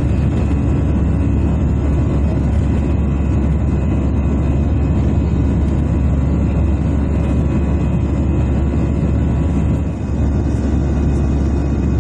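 Steady jet engine and airflow rumble heard inside the cabin of an Airbus A320-214 with CFM56 engines, with a few faint steady tones over it. It dips briefly about ten seconds in.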